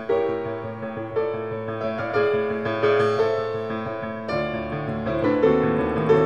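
Slow background piano music, with a new note or chord struck about once a second and left to fade.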